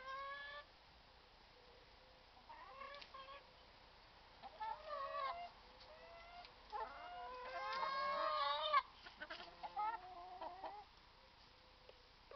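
Domestic hens clucking and calling in several short bouts, with a longer, louder run of calls about seven to nine seconds in.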